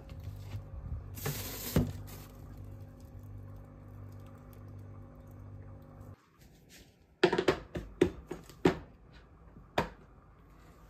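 Refrigerator hum with the door open while plastic-wrapped groceries are handled, with one loud rustle of plastic packaging. The hum cuts off, and then several sharp clicks and knocks follow as plastic food containers are set down on a kitchen counter and a storage container's snap-lock lid is handled.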